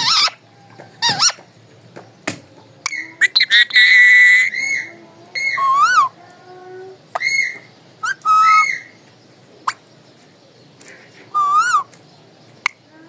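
Alexandrine parakeet (a 'Raw' parrot) calling in a string of short squawks and whistles, several with a wavering, warbling pitch, separated by brief pauses.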